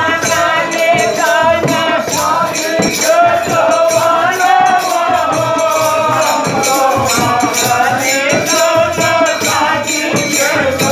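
Holi folk song: men singing to a harmonium, with jingling hand percussion beating steadily throughout.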